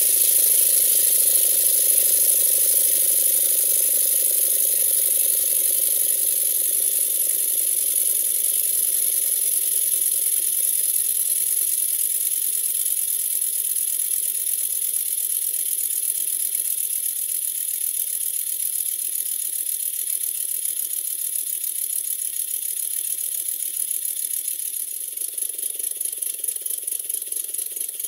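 Stuart Models Twin Launch twin-cylinder model steam engine running fast on compressed air: a rapid, even stream of exhaust beats with a strong hiss and a light mechanical rattle from the valve gear. It grows gradually quieter over the course of the run.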